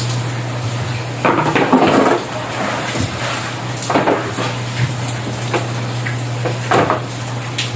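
Steady hiss of heavy rain under a constant low hum, broken by a few clattering knocks like household objects being handled: a longer clatter about a second in, a single one about four seconds in, and another near the end.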